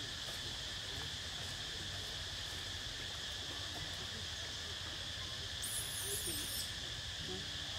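Steady drone of insects, with a short burst of high, wavering chirps about six seconds in.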